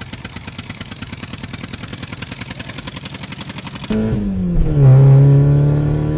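Engine sound effect for a toy tractor: a fast, even rattling putter that grows louder and cuts off about four seconds in. It gives way to a low drone that slides down in pitch and then holds steady.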